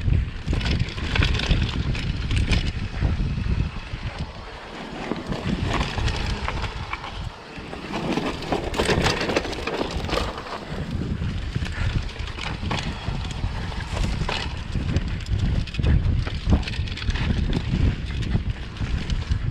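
Mountain bike descending a rough dirt downhill track: wind buffeting the microphone, with the bike rattling and clattering over the ground.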